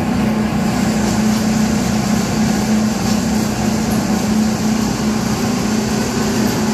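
Pellet mill running steadily with a constant hum while pet food pellets stream out of its chute into a wire mesh basket.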